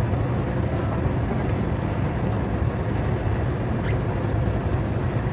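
Motor vehicle running steadily: a low engine drone with a steady hiss of road and wind noise.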